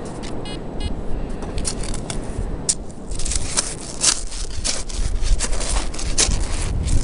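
Wind buffeting the microphone with a steady low rumble, while a hand trowel scrapes and crunches into gravelly beach sand, in a run of sharp scrapes from about three seconds in. Two short buzzy beeps sound about half a second in.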